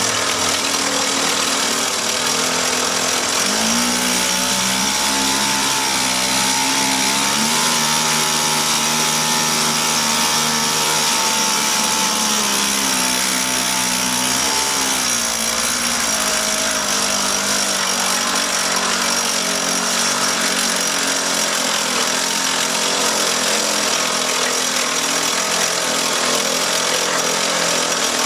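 Clinton 1.5 hp air-cooled outboard's two-stroke Tecumseh powerhead running after its ignition points were cleaned and reset. It revs up a few seconds in and holds a higher speed, is throttled back about twelve seconds in with a brief rev around fifteen seconds, then runs steadily at a lower speed.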